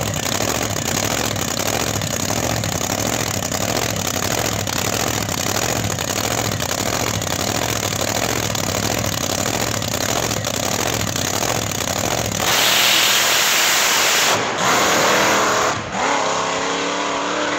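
A no-prep drag truck's open-header race engine idling at the start line, then about twelve seconds in it launches at full throttle with a sudden loud blast. The engine note climbs as the truck accelerates away down the track.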